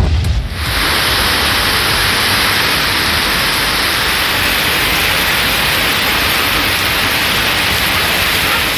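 Heavy rain pouring onto a flooded street, a steady, even hiss. It is preceded in the first half-second by the tail of a low thump.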